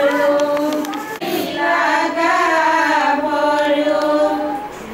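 A group of women singing a traditional Assamese ceremonial song together. The sung line breaks off briefly about a second in, resumes, and fades near the end.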